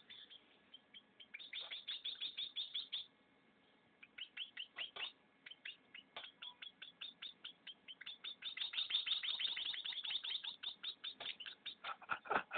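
Hand-fed baby birds begging with rapid high chirps, several a second, in runs that thicken into a dense chorus past the middle.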